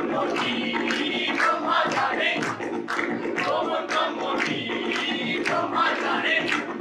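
A chorus of voices singing a song together over music with a steady percussion beat.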